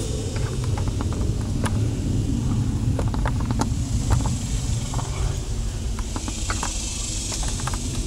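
A large honeybee colony buzzing close to the microphone, a dense steady low hum with scattered faint ticks.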